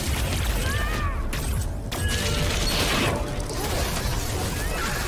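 Superhero-fight sound effects from a TV drama: electric power blasts and whooshes over a deep, continuous rumble, with a few short whistling sweeps.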